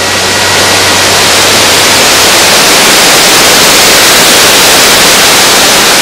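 Shuangliu Falls, a waterfall with about an 80 m drop, pouring into its plunge pool: a loud, steady rush of falling water.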